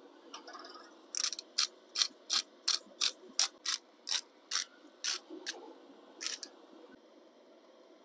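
Hand-twisted salt grinder cranked over raw ground beef: about a dozen ratcheting, crunching strokes, two to three a second, then it stops.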